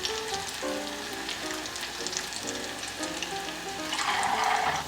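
Churro dough frying in hot oil, a steady sizzle with fine crackling.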